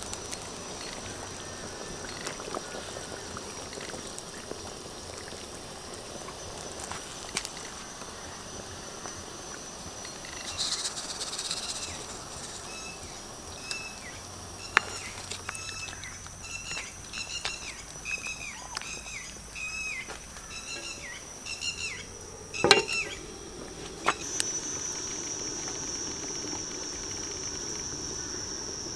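Steady high insect drone from crickets or cicadas, with soft bubbling from a wok of soup boiling over a wood fire. About halfway in, a bird calls in a quick run of short arching chirps for several seconds, and a sharp knock comes near the end.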